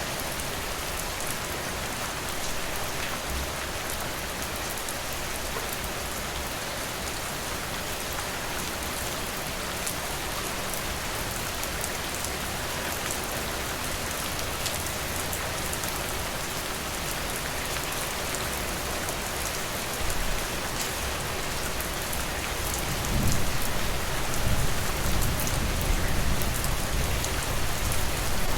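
Steady rainfall, an even hiss with fine patter of individual drops. About two-thirds of the way in, and more strongly in the last few seconds, uneven low rumbling swells rise beneath the rain.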